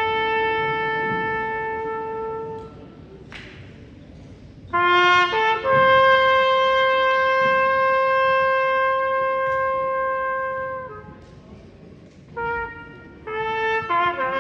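Unaccompanied trumpet playing a slow melody of long held notes, each phrase separated by a short pause.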